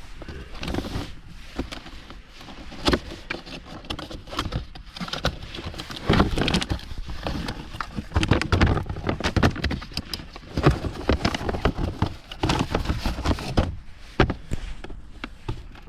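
Irregular clicks, knocks and rustling: handling noise from hands at work on the car.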